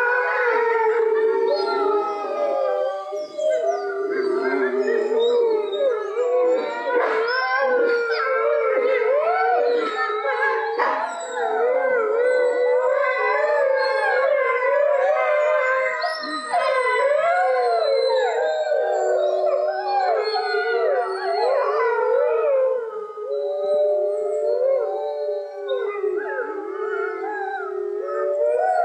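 A pack of wolves howling in chorus: many overlapping voices gliding up and down, some long and held, others higher and wavering, without a break.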